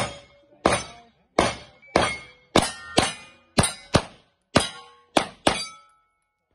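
Rapid string of about eleven 9mm pistol shots from a Glock 19 in a CAA Roni carbine kit, each report followed by a short metallic clang as the steel plates are hit. The shots come roughly half a second apart.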